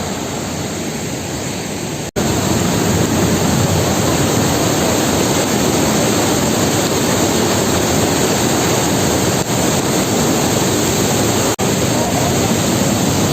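Steady rushing of a monsoon-swollen waterfall, mixed with heavy rain. The noise breaks off for an instant about two seconds in and comes back louder, with another brief dropout near the end.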